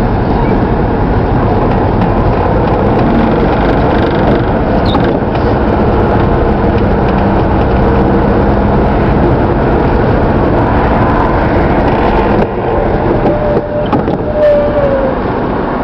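Steady engine and road noise heard from inside a moving car's cabin as it follows a low-loader lorry, dipping slightly in loudness near the end.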